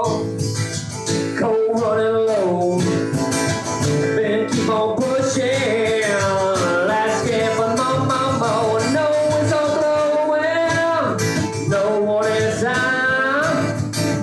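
Live country song: two acoustic guitars strummed while a man sings, holding some long notes.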